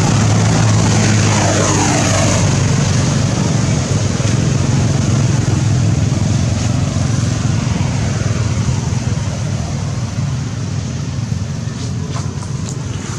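A loud, steady engine drone that slowly fades over the last few seconds.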